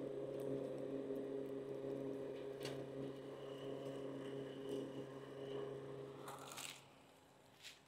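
A small motor humming steadily, cutting off about seven seconds in, with a few light clicks of sticks being handled.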